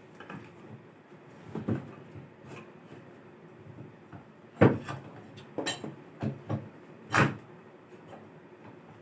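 Irregular knocks and clatter of hard objects being handled and set down, about half a dozen, the sharpest about four and a half seconds in.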